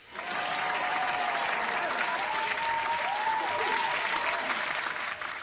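A crowd applauding steadily, with faint cheers rising and falling in it.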